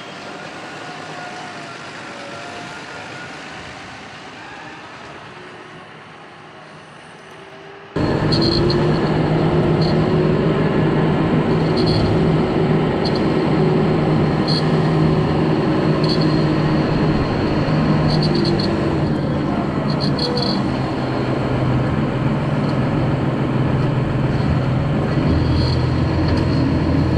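John Deere tractor engine running while handling round straw bales with its front loader: quieter at first, then about eight seconds in suddenly loud and close, a steady drone with irregular short high ticks.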